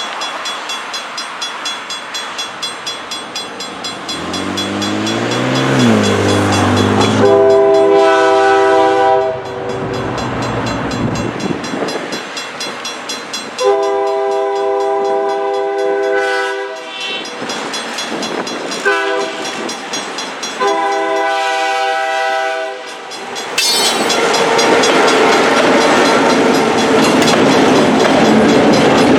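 GP9u diesel locomotive SRY 108 sounding its Nathan K3L multi-chime air horn for a grade crossing, long, long, short, long, after its engine's low drone wavers in pitch. Near the end the locomotive and loaded propane tank cars pass close by with loud wheel and rail noise.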